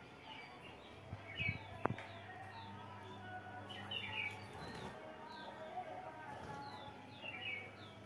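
Budgerigars chirping and chattering in short clusters, over a steady low hum. A single sharp click sounds about two seconds in.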